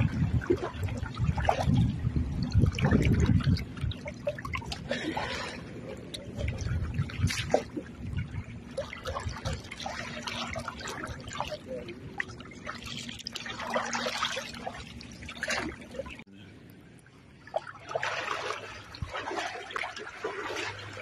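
River water splashing and sloshing as people wade through it and drag a cast net, in irregular splashes with a quieter stretch about three-quarters of the way through.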